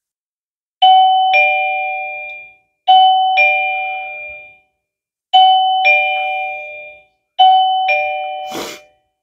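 Daytech wireless door chime sounding a two-note ding-dong four times, each chime fading out before the next, set off by separating the magnetic door contact as a door opening would. A brief rustle of handling noise comes near the end.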